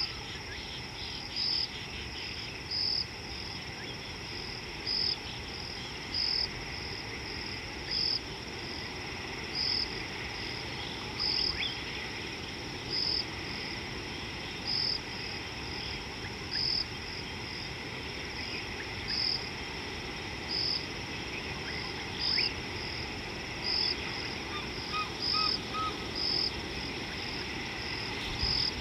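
Insect chorus: a steady high trill with a louder chirp pulsing through it roughly every second and a half.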